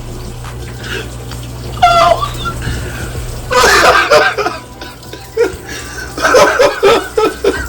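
People laughing and exclaiming without words. There is a short high-pitched squeal about two seconds in, a loud burst about halfway through, and choppy laughter near the end.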